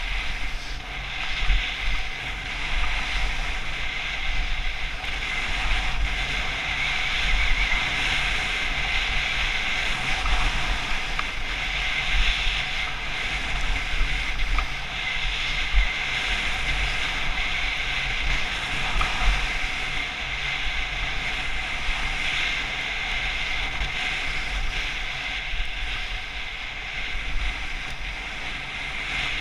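Wind rushing over the microphone of a helmet-mounted camera, a gusting low rumble, with the steady hiss of skis carving on groomed snow.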